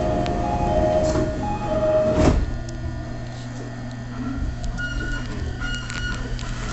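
E217 series train's door chime, a high-then-low two-note chime repeating, ending as the doors shut with a thud a little over two seconds in, followed by the carriage's steady low equipment hum while the train stands at the platform.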